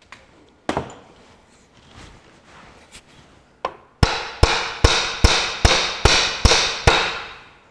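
Hammer striking the thermostat housing on a Ferguson 23C diesel engine: a couple of single knocks, then about halfway in a quick run of eight ringing metal blows, roughly two and a half a second, as the stuck housing is knocked to free it.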